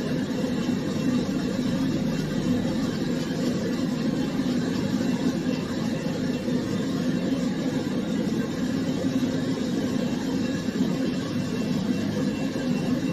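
Pet grooming dryer running with a steady low hum.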